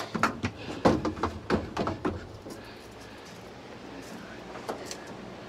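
Plastic battery box lid being unlatched and lifted off, a quick run of plastic clicks and knocks over the first two seconds, then a couple more clicks near the end.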